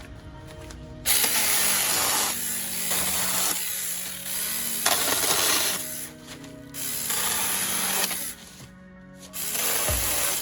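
Small 4-inch battery chainsaw running in bursts of a few seconds each, three times, cutting through wood, over background music.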